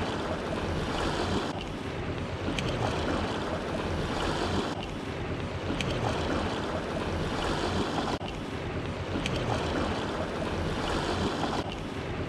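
Sea washing against the rocks, with wind noise on the microphone; a steady rush of noise.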